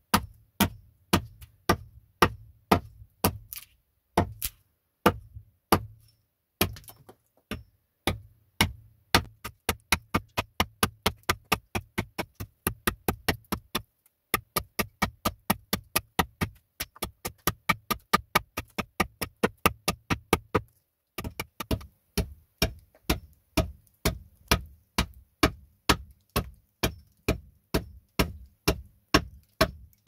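Hatchet chopping into an upright softwood log: rapid sharp strikes of the blade biting the wood, about two or three a second, with a few short pauses.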